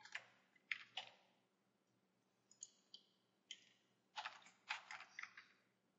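Faint clicking of a computer mouse and keyboard: about a dozen short clicks, with a quick run of them about four seconds in.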